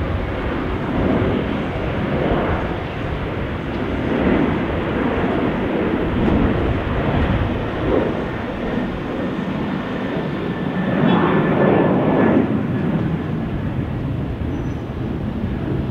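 Jet engines of an Airbus A350-900, Rolls-Royce Trent XWBs, running at high power with a continuous rushing roar as the airliner rolls along the runway, swelling and fading and loudest about eleven seconds in.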